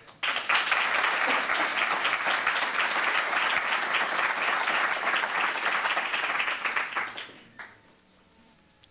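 Audience applauding, starting abruptly and dying away after about seven seconds.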